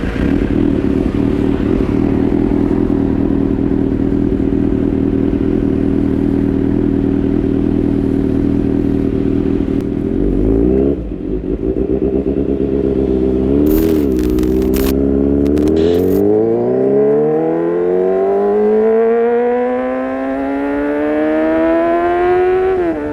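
Kawasaki ZX-6R inline-four engine through an Arrow Pro-Race exhaust, running at a steady pitch for about ten seconds. After a brief dip, its pitch climbs steadily for several seconds and then drops sharply near the end.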